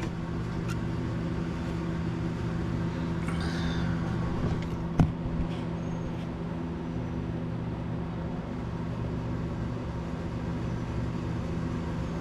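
Steady low machine hum, with one sharp click about five seconds in.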